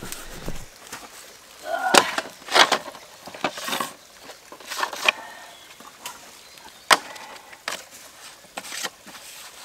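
Irregular sharp knocks and clicks of a black plastic water pipe and its white plastic compression coupler being handled and worked together.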